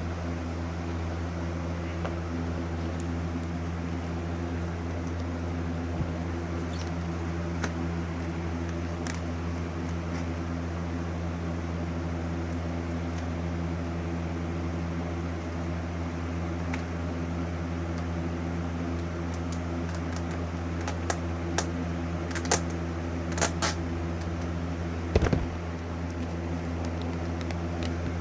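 Steady low machine hum, like a fan or appliance running. A few faint scattered clicks and taps come through it, more of them about twenty seconds in, and there is one louder knock near the end.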